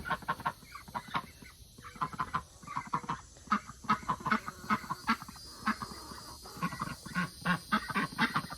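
Young chickens clucking in a run of short, quick calls, several a second.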